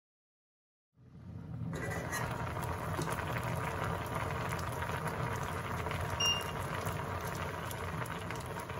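Mussels boiling in their cooking liquid in a stainless steel saucepan, a steady bubbling that starts about a second in, with a brief light clink a little past the middle.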